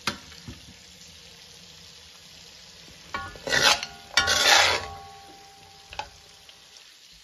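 Duck and green peppers sizzling in a non-stick wok as a metal spatula stirs and scrapes the pan. There is a sharp metal clink at the start, and two louder bursts of scraping and sizzling about three and four seconds in.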